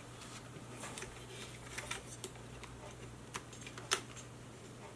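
Small scattered clicks and taps of plastic parts of an LED lighting strip being handled and slid along its wire, the sharpest click near the end, over a low steady hum.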